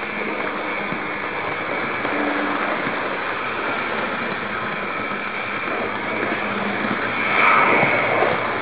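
Electric model train running along its track, heard from a camera riding on the train: a steady rolling noise of wheels on the rails, louder for about a second near the end.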